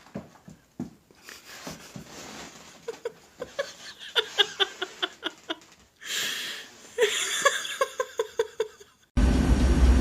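Someone laughing in two runs of quick, high-pitched pulses, about four a second, then a sudden loud low rumble starting near the end.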